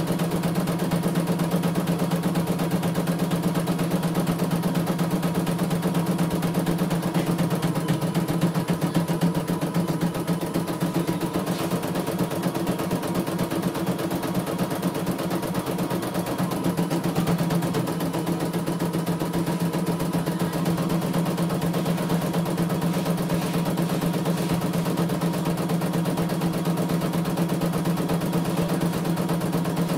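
CNY E900 computerized embroidery machine stitching a design, its needle going at a steady fast rate under an even running hum. It is a test stitch-out that is running without any trouble.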